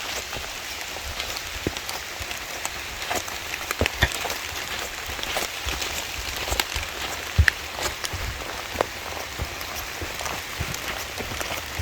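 Steady rain falling in a forest, with irregular louder drops striking close by.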